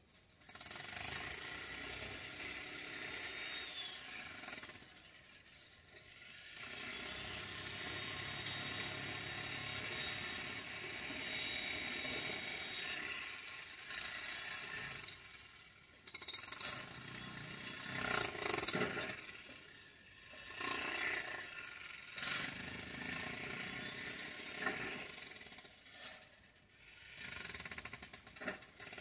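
Jackhammer breaking up road pavement, running in stretches of several seconds with short pauses between them.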